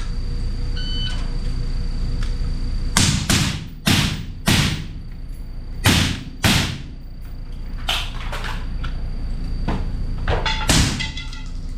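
AR-15 rifle in 5.56 firing indoors: about ten sharp shots, mostly in quick pairs, each with a short ringing echo. A short electronic beep sounds about a second in, before the first shot.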